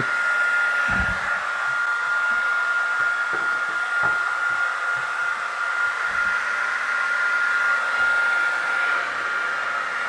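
AEG HT 5684 2200 W hair dryer blowing unheated cold air: a steady rush of air with a steady high whine from the fan motor. A few short low thumps sound through it.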